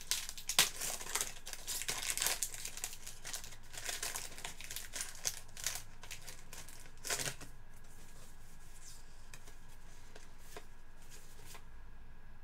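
Crinkling and tearing of a trading-card pack wrapper as the cards are handled, in quick crackly bursts that die away about seven seconds in.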